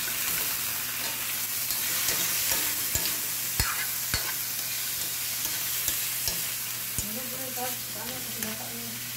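Duck pieces sizzling in oil in a metal wok while a metal spatula stirs them. The spatula scrapes the pan and clacks sharply against it several times.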